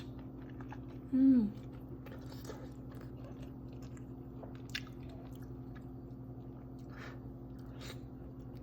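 A person chewing and biting into juicy steamed momo, with soft wet mouth sounds and occasional smacks, over a steady low hum. About a second in comes a short hummed vocal sound that falls in pitch.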